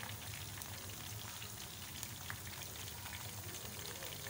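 Skewered chicken and potato-slice bites frying in hot ghee, a steady sizzle thick with fine crackles. They are partway through frying, not yet cooked through.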